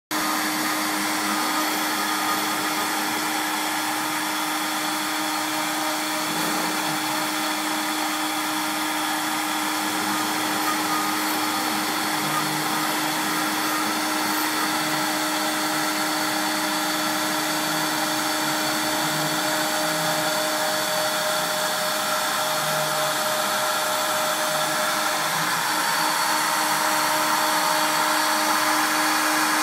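Mini CNC wood router carving a long wooden post on its rotary axis: the spindle runs with a steady whine while the small bit cuts the wood with a rough, even hiss, growing slightly louder near the end.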